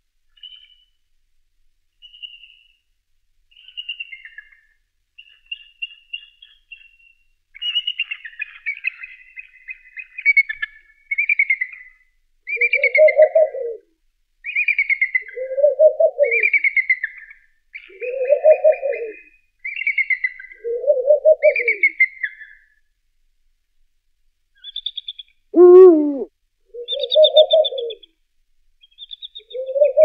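A bald eagle's thin, high chirping calls, then a Eurasian eagle-owl's deep hoots repeating every two to three seconds, with raspy higher-pitched calls running between them. One loud sliding call comes late on.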